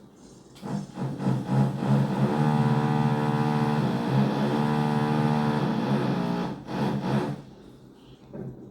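Renovation power tool running in the flat below, heard through the floor. It comes on in short stuttering bursts, holds a steady buzzing tone for about four seconds, then gives a few more short bursts and stops.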